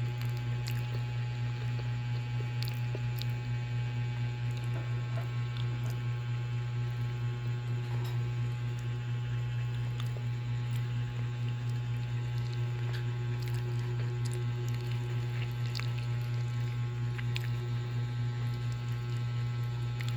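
Steady low electrical hum, with faint small clicks scattered through it.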